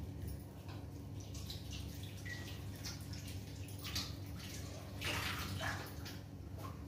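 Faint crackling and hissing of a paratha cooking on a hot tawa, with a few louder crackles about four and five seconds in, over a steady low hum.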